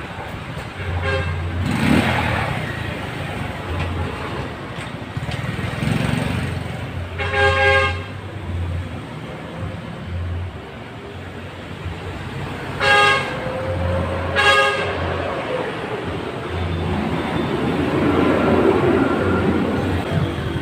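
Short vehicle horn toots, three clear ones near the middle, over the steady sound of engines and road traffic.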